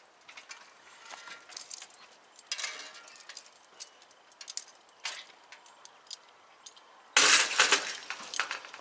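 Level crossing barriers lowering, their hanging metal lattice skirts jingling and clinking as they fold. The loudest sound is a clattering clank about seven seconds in, as the booms come down onto their rests.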